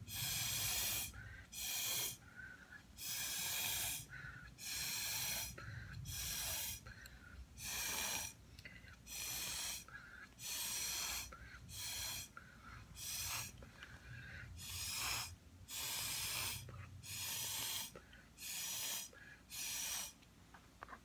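Repeated puffs of breath blown hard through a drinking straw onto wet acrylic paint, each a breathy hiss through the straw, about seventeen blows with short pauses between.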